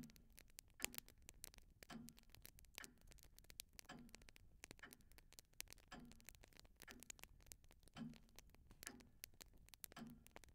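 Faint clock ticking about once a second, each tick with a soft low knock, with lighter irregular clicks between the ticks.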